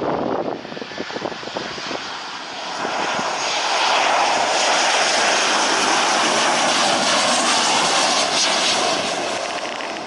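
Jet engines of a Boeing 737-900ER airliner passing low on landing approach. Gusty wind on the microphone at first, then the engine noise swells about three seconds in, holds loud and steady, and eases off near the end.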